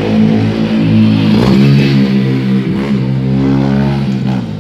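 Single-cylinder motorcycle engine running with a loud, steady exhaust note. Its pitch dips and recovers slightly twice as the throttle eases and opens.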